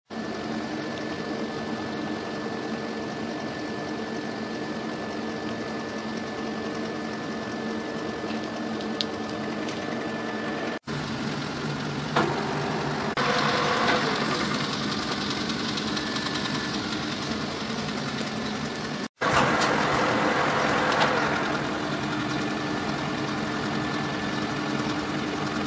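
Metal lathe running with a steady mechanical hum and whine. The sound cuts out sharply twice, and it grows louder and harsher for a few seconds a little after the middle and again about three-quarters through.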